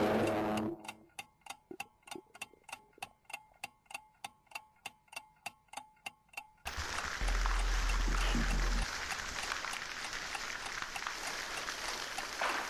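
Clock ticking quickly, about four ticks a second, for several seconds. It cuts suddenly to a loud, steady rushing noise with a deep low rumble.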